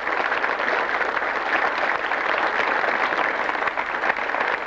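Large grandstand crowd applauding, a steady, dense clapping.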